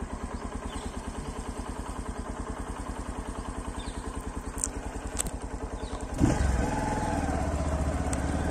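Motorcycle engine running at low speed with an even beat of about ten pulses a second. About six seconds in there is a thump, and the engine gets louder and rougher after it.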